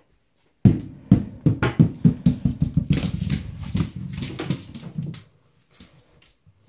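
A puppy chasing and batting a ball across a vinyl kitchen floor: the ball knocks and bounces while paws patter and scrabble on the tiles. It starts suddenly with a loud knock about half a second in and keeps up as a rapid run of knocks until about five seconds in, then dwindles to a few scattered taps.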